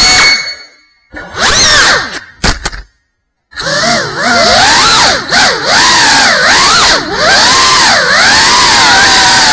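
Brushless motors and ducted propellers of a GEPRC CineLog35 cinewhoop drone whining, picked up on board, the pitch rising and falling with throttle. The sound fades out about half a second in, comes back in short bursts, cuts out again around the three-second mark, then runs on with the pitch swooping up and down about once a second.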